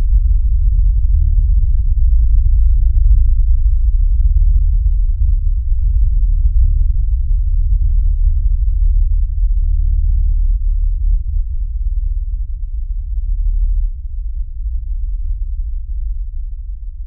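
A low, steady electronic drone, deep and without any higher sounds, dropping a little in level near the end and starting to fade out.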